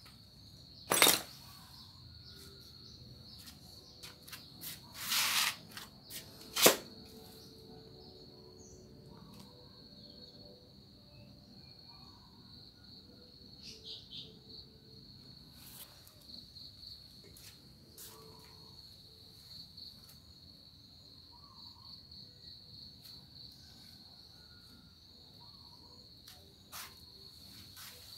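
Crickets chirping in a steady high trill. A few sharp knocks come in the first seven seconds: about a second in, around five seconds, and the loudest near seven seconds.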